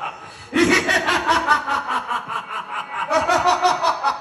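A man's loud theatrical stage laugh in fast repeated 'ha-ha-ha' pulses, starting about half a second in, with a brief break about three seconds in before a second run.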